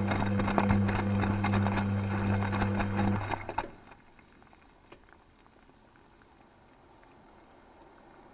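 Beko washing machine drum turning a full load of wet laundry during the heating phase of a 90°C wash, heard from inside the detergent drawer: the drum motor hums while the clothes slosh and tumble. The motor cuts out about three and a half seconds in and the drum rests, leaving a faint hiss and one small tick.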